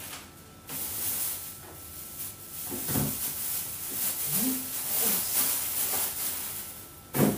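Clear plastic bag rustling and crinkling as it is handled and shaken, in irregular crackly bursts.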